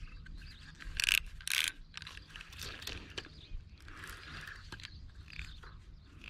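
Spinning reel being cranked, its gears and line roller giving a fast run of fine clicking as line is wound in. Two louder scratchy sounds come about a second in.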